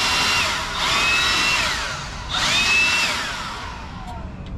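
Electric drill with a 3/8-inch concrete bit drilling into concrete in three bursts, its motor whine falling away as it winds down after each, the last one winding down near the end.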